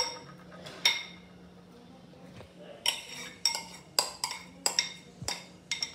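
Metal utensils clinking against a steel pot and bowl while chopped coriander is tipped in: about nine sharp, ringing clinks, spaced out at first and coming in quick succession in the second half.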